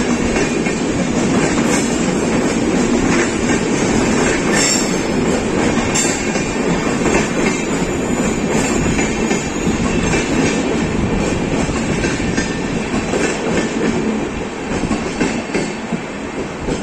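Indian Railways passenger train of LHB coaches rolling past on the next track: a steady rumble of steel wheels on rail with clickety-clack over the rail joints, and a couple of sharp metallic squeaks near the fifth and sixth second. The rumble fades toward the end as the last coach, a luggage van, goes by.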